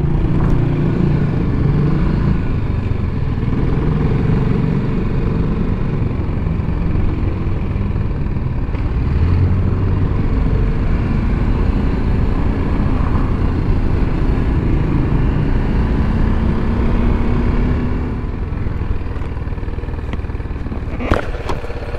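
BMW G310GS single-cylinder motorcycle engine running at low road speed, heard from the rider's position along with wind noise. It eases off and gets a little quieter about eighteen seconds in as the bike slows.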